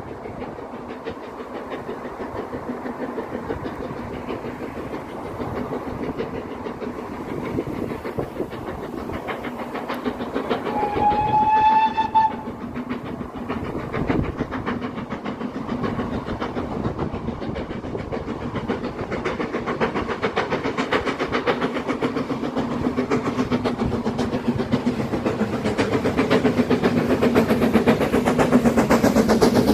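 Steam locomotive hauling a train of coaches at speed, its rapid exhaust beats growing louder as it approaches, with one short whistle blast about eleven seconds in. The train is loudest near the end as the coaches pass close by.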